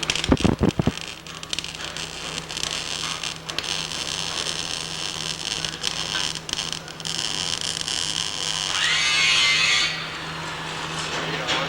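Workshop noise: a quick run of knocks at the start, then a steady hiss over a low hum, and a power tool running for about a second near the end.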